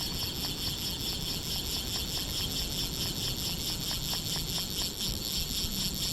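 Fishing reel drag buzzing as a hooked bonefish runs and strips line: a steady, rapid, high-pitched ratcheting over wind noise.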